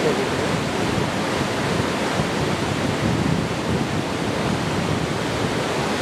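Mountain stream rushing over a small rock cascade into a pool: a steady, even rush of water.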